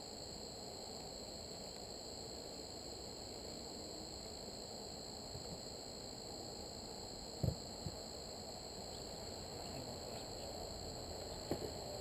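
Steady insect buzzing and high trilling around the beehives, with two sharp knocks about seven and a half seconds in and another pair near the end as hive equipment is handled.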